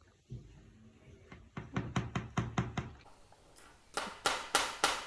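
A single thump, then a run of quick, sharp taps, about five a second, and near the end a louder run of taps at about four a second: an Indian ringneck parakeet pecking at a hard object.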